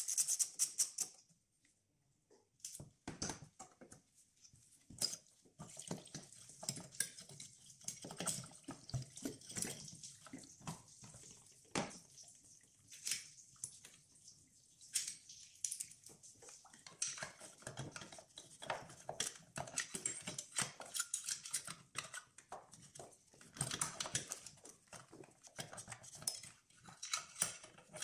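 Hand ratchet clicking in quick runs as bolts on a Peugeot 2.0 HDi's EGR valve are worked: once at the start and again near the end. Between the runs come scattered knocks and rattles of metal tools and engine parts.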